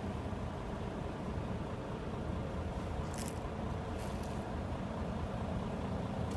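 A bus engine idling steadily with a low, even rumble. Two short hisses sound about three and four seconds in.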